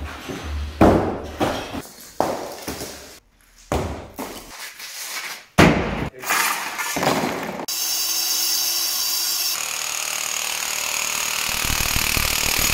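Concrete blocks and rubble crashing and clattering down in a series of separate impacts as a block wall is demolished. From about eight seconds in, an electric demolition hammer chisels into a concrete floor with a steady rapid hammering.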